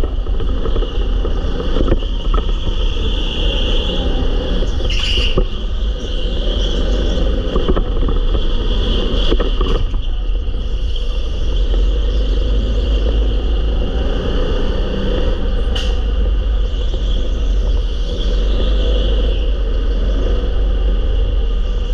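Go-kart being driven at speed, heard from on board: a steady engine rumble, with a few sharp knocks about five, ten and sixteen seconds in.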